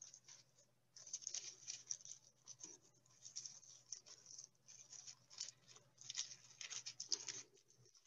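Tissue paper crinkling and rustling faintly in irregular bursts as the layers of a tissue-paper flower are pulled up and separated by hand.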